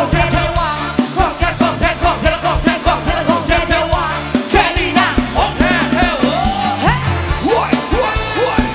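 Live band playing an upbeat rock song, with drums, bass and electric guitar keeping a steady beat and singing over it.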